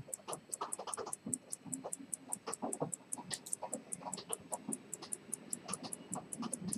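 Zenith lever-escapement pocket watch ticking steadily at about five ticks a second, under louder, irregular clicks and knocks.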